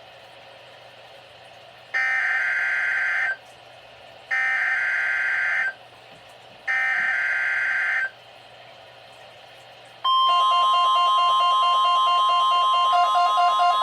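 NOAA Weather Radio Emergency Alert System test: three short bursts of screechy digital header data, then a long steady alert tone starting about ten seconds in, with a pulsing warble joining it near the end.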